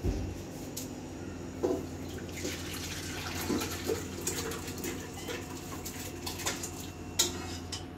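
Household background noise: a steady low hum with scattered light clicks and knocks, and a soft hiss for a couple of seconds near the middle.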